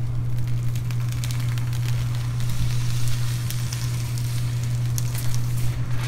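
Protective plastic film being peeled off the tempered-glass side panel of a Thermaltake View 31 PC case, crackling and crinkling with scattered sharp ticks. A steady low hum runs underneath.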